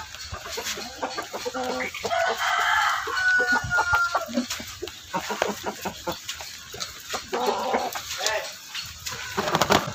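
Hens clucking, with a rooster crowing once, about two seconds in.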